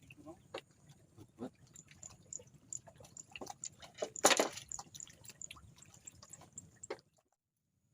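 Water dripping and splashing in small scattered drips, with one louder splash about four seconds in; the sound cuts off suddenly about seven seconds in.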